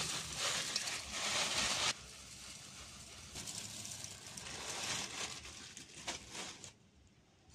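Puffed rice pouring from a plastic packet into an aluminium bowl of water, a dry pattering rush. About two seconds in it drops to a quieter, sparser trickle, and it stops near the end.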